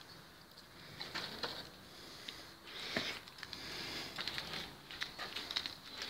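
Cardboard, paper and dry straw rustling and crackling as they are handled and pushed into place, with scattered light clicks and knocks.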